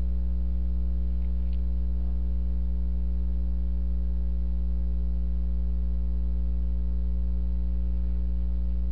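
Loud, steady electrical mains hum with a stack of overtones.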